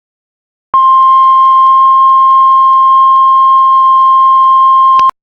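Heart monitor flatline: one long, steady, high-pitched tone that starts abruptly about three quarters of a second in and cuts off sharply near the end. It is the continuous alarm tone that signals the heart has stopped.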